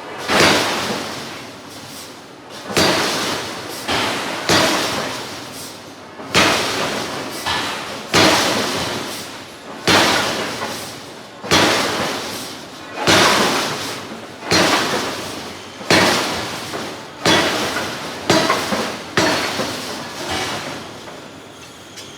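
Hydraulic forging hammer striking hot steel in a steady series of heavy blows, about one every second and a half, each ringing off before the next.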